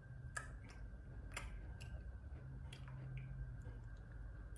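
Faint, scattered clicks of a metal spoon scraping and tapping in a bowl of ice cream, about half a dozen over a few seconds, over a low steady hum.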